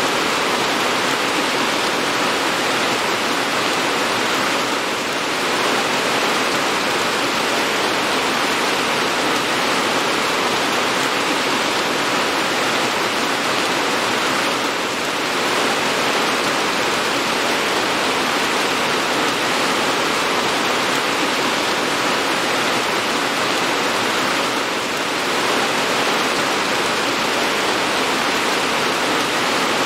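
Steady, heavy rain: a dense, even hiss of falling water, with a slight dip in loudness about every ten seconds.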